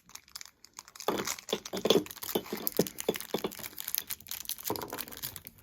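Small plastic toy wrapper crinkling and tearing as it is handled and opened, a dense run of sharp crackles starting about a second in.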